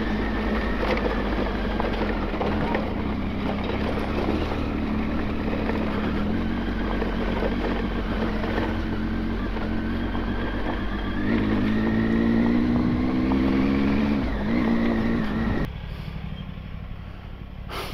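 Motorcycle engine running while riding, with wind and road noise, rising in pitch as it accelerates about two-thirds of the way in, then dropping away suddenly near the end.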